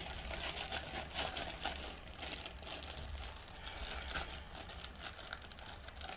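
Plastic packaging crinkling and rustling irregularly as it is handled and opened.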